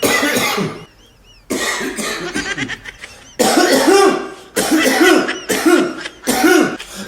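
A person with a cold coughing repeatedly in a series of loud fits, with a short lull about a second in.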